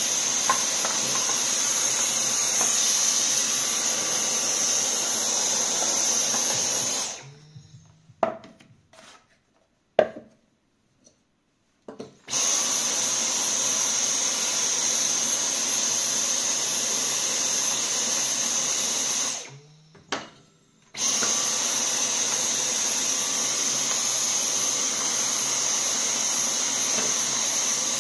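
Cordless handheld vacuum cleaner running in three spells of several seconds each, a steady motor hum with a high whine, switched off about 7 seconds in and again about 19 seconds in and restarted each time. It is sucking dust out of a wooden box and a wooden block drilled with holes, with a few knocks of wood being handled in the pauses.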